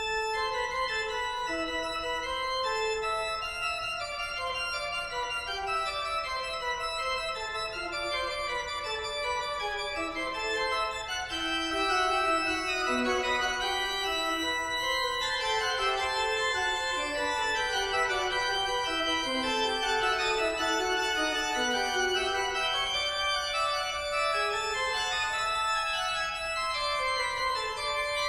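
Organ music that starts suddenly, playing sustained chords with repeated descending runs of notes.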